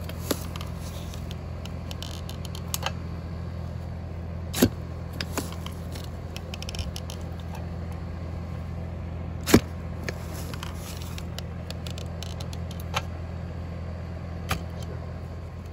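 A steady low mechanical hum, with a few sharp knocks and clicks several seconds apart, the loudest about halfway through.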